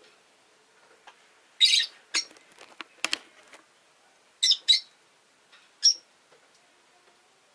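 Rosy-faced lovebirds giving short, shrill chirps: one about two seconds in, a quick pair around four and a half seconds, and another near six seconds. Between them comes a run of small clicks.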